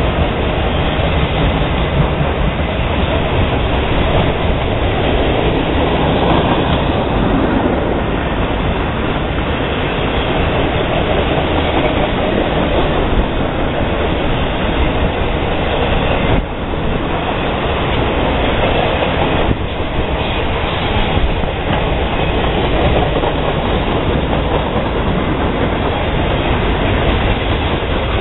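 Freight cars of a long manifest train rolling steadily past close by: steel wheels running on the rails in a loud, continuous rumble, dipping briefly twice in the second half.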